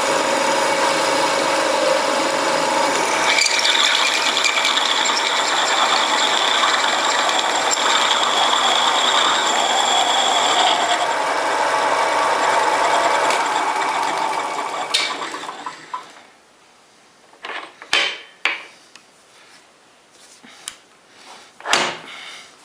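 Home-built metal lathe running steadily under its 750 W single-phase motor, with a steady whine over the machine noise, then switched off and spinning down about fifteen seconds in. A few sharp knocks follow.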